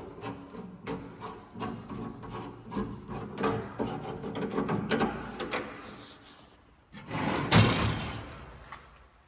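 Bandsaw cutting wood: irregular rasping of the blade through the stock over a steady low hum, with a louder burst of cutting noise about seven seconds in, then the sound fades away.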